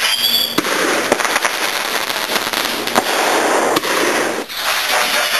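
Consumer fireworks going off: a steady, dense crackle and hiss with several sharp pops, the loudest about three seconds in.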